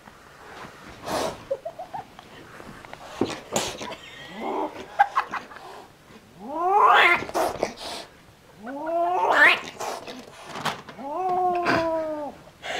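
Kitten yowling in three drawn-out calls that sweep up in pitch and then fall away, with a few brief sharp noises before them.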